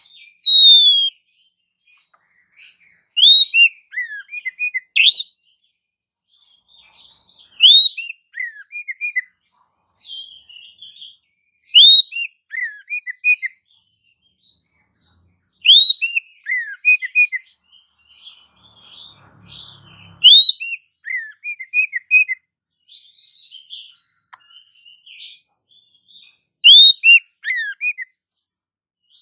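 Bird-lure recording of chirping, twittering birds. A loud upward-sweeping whistle repeats about every four seconds, each followed by a few short falling notes, over a continuous high twitter.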